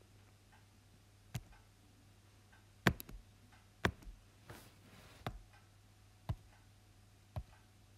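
A handful of short, sharp clicks at irregular intervals, about seven in all, over a faint steady low hum.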